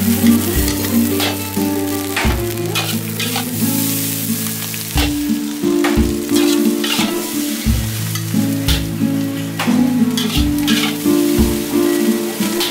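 Fried rice sizzling in a hot wok while a metal ladle and spatula repeatedly scrape and toss it against the pan. Background music plays underneath.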